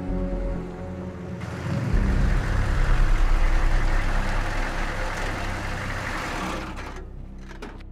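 Old square-body Chevrolet Blazer driving up and pulling to a stop, its engine and tyre rumble swelling about two seconds in and fading away toward the end. A few sharp clicks follow near the end.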